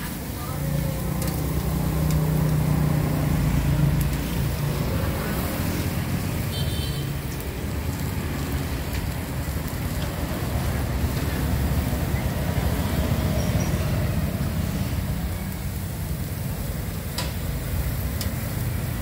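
Street noise: a low rumble of road traffic, with a steady hum through the first several seconds and a couple of sharp clicks near the end.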